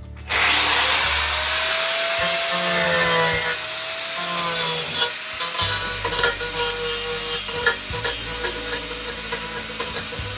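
Loud, harsh sawing or rasping noise that starts suddenly, with a few wavering whistle-like tones in the first seconds and uneven scraping strokes after.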